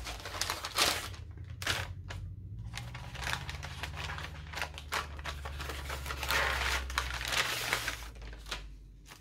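Rustling and crinkling of a fabric drawstring bag as it is handled, with a bundle of paper cards and tags slid out of it near the end.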